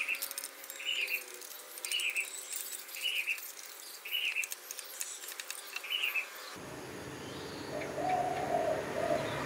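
A small bird chirping evenly, about once a second, over faint clicks from a machete scraping a bamboo cane; after a cut, a dove cooing once near the end.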